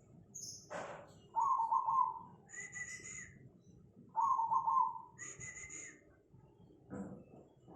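Zebra dove (perkutut, black cemani variety) cooing: two phrases of rapid coos about three seconds apart, each followed by a burst of higher chirping notes. A short sharp click about a second in.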